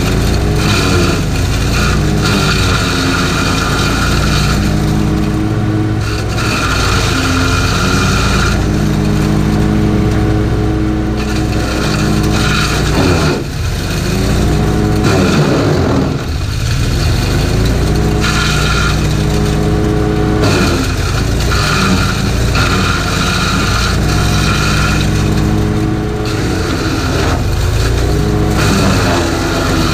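Wood chipper's Honda GX390 single-cylinder petrol engine running at full throttle while leafy branches are fed in and chipped. The engine's pitch dips under the load and recovers several times, with one deeper, longer bog about halfway through.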